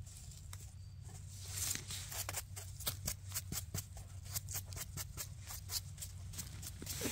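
A small brush flicking dirt off a porcini cap in quick, short strokes, several a second, after a knife scrapes the stem.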